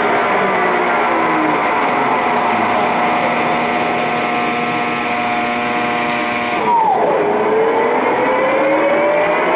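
Clausing Boravia SUS63H2000 engine lathe running, its headstock gearing giving a steady whine of many tones. About two-thirds in the sound changes suddenly: the whine drops quickly in pitch, then climbs slowly as the spindle changes speed and runs back up.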